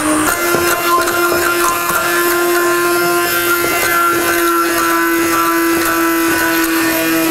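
Electric immersion hand blender running steadily in a stainless steel bowl with a steady motor whine, its pitch stepping up slightly a moment in, as it creams raw egg yolks.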